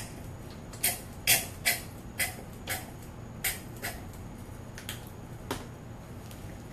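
Light, irregular clicks and taps as a stirring stick and paint bottle knock against a plastic cup while chartreuse acrylic paint is mixed with water, about ten knocks that thin out toward the end.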